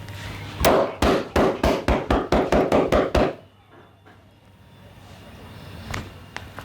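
Masseur's hands striking in quick percussive massage strokes: about a dozen sharp slaps, some five a second, starting about half a second in and stopping abruptly after about three seconds.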